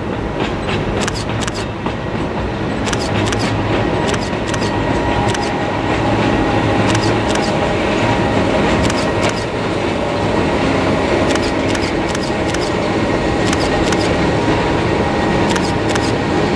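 Oigawa Railway Ikawa Line passenger train, pushed by its Abt rack-and-pinion electric locomotive, running across a bridge on the climb toward Nagashima Dam. A steady rolling rumble with a faint high whine and irregular wheel clicks grows slightly louder as the train comes nearer.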